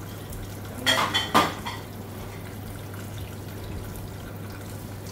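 Kitchen tap running onto diced pomelo pith in a plastic colander in a steel sink, as the pith is squeezed and rinsed by hand. A few short knocks about a second in are louder than the water.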